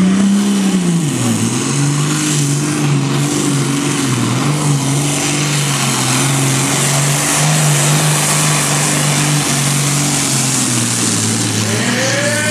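Diesel pulling tractor engine running flat out under heavy load as it drags a weight-transfer sled. Its pitch drops about a second in, then holds fairly steady with a slight waver.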